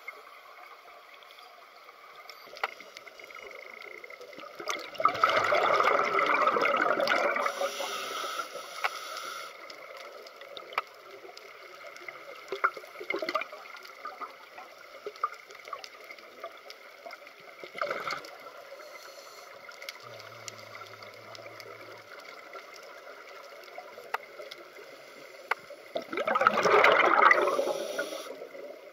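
Scuba diver's exhaled bubbles from the regulator, heard underwater as two long bubbling bursts about twenty seconds apart, with faint clicks in between.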